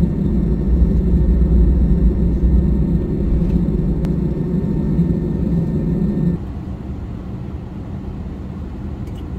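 Steady low rumble with a thin, constant high whine: cabin noise inside an Air France Airbus A320-200 after landing. About six seconds in it drops suddenly to a quieter rumble without the whine.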